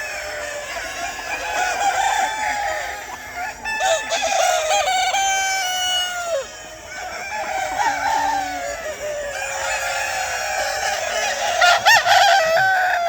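A large flock of chickens clucking and calling over one another, with roosters crowing among them. A sharp knock a little under four seconds in, and a louder one near the end.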